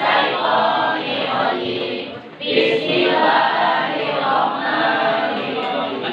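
Many students' voices reciting Qur'anic verses aloud in Arabic at once, a chanted group recitation with voices overlapping; it drops off briefly a little over two seconds in.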